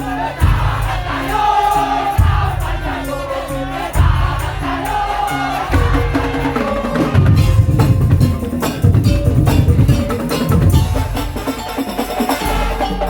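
Madurese tong-tong percussion ensemble playing live: deep drum strokes about every two seconds under a melody line, the drumming turning faster and denser about seven seconds in.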